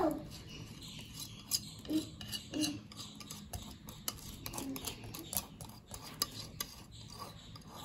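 A utensil clinking and scraping against a bowl in a run of light, irregular clicks as cake batter is poured and scraped out into a pressure cooker.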